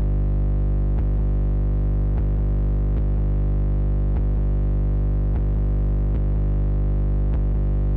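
Music: a sustained synthesizer chord held over a heavy, steady bass, with faint clicks roughly once a second.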